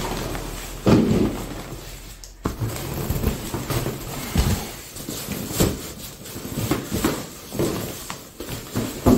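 Handling noise from a Lorelli Angel stroller carrycot being lifted and fitted: irregular knocks and thumps with fabric rustle. The loudest thumps come about a second in and again near the end.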